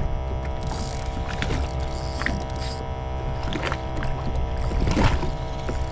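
Sea-Doo jet ski engine running steadily at idle, a constant low hum, with a few sharp knocks and a hiss for a couple of seconds near the start.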